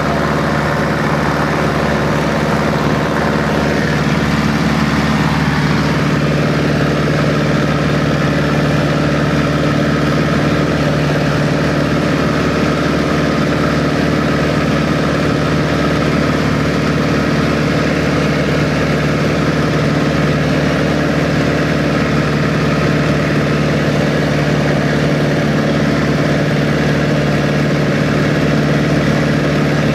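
de Havilland Chipmunk's Gipsy Major four-cylinder inline piston engine and propeller droning steadily in flight, heard from inside the cockpit with the rush of the slipstream.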